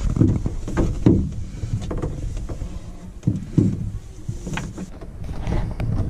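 Irregular knocks, bumps and rubbing of hands working plastic water pipes and a plastic tap unit under a caravan washbasin while a pipe is pushed into a push-fit connector.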